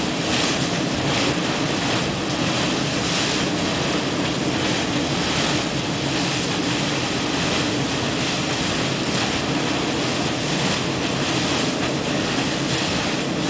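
Volcanic fumarole of La Soufrière's South Crater venting gas and steam under pressure, a continuous deafening rush like the turbines of a jet engine.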